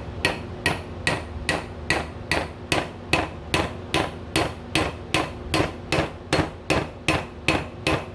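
Hammer blows on a bearing race driver, driving a new front wheel bearing race into the hub of a 1985 Chevy C10: steady, evenly spaced metallic strikes about two and a half a second, each with a short ring.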